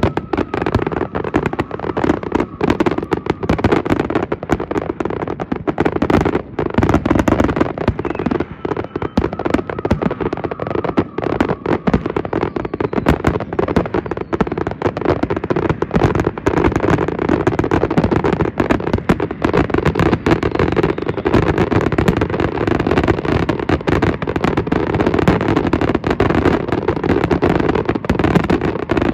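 Fireworks: many aerial shells launching and bursting in rapid succession, the bangs packed so close together that they run into one continuous barrage with crackle.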